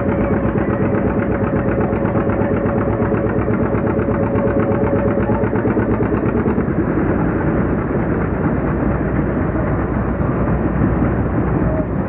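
Tractor engine running steadily with rapid, even firing pulses; a steady tone in the note fades out about halfway through.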